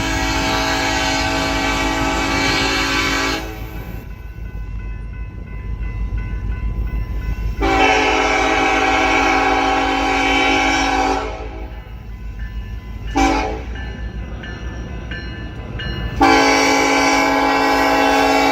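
Nathan K5LLA five-chime air horn on a BNSF freight locomotive sounding in a horn show: a long blast that stops about three seconds in, a second long blast of about three and a half seconds, a short toot, then another long blast starting near the end. A low train rumble runs underneath.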